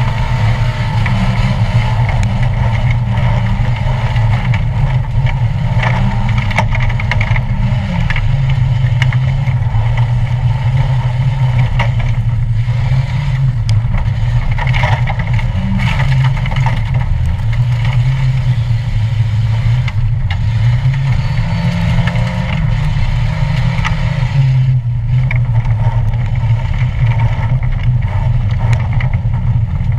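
Old stock car's engine heard from inside the cabin, its note rising and falling again and again as the driver works the throttle through the laps, with scattered knocks and rattles.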